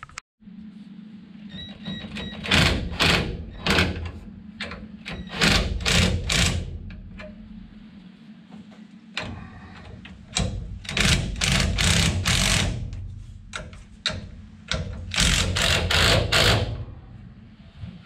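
Cordless drill/driver running in repeated short bursts, in four groups, driving a bolt through a homemade bar to press down the lock plate of a GM tilt steering column.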